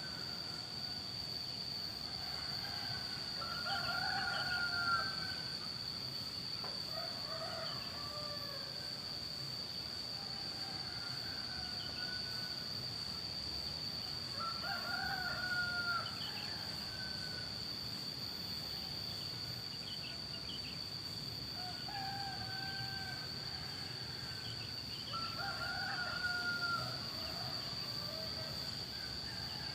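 Several village roosters crowing, answering one another: about seven crows, some near and some farther off, spaced a few seconds apart. A steady high-pitched hum runs beneath them.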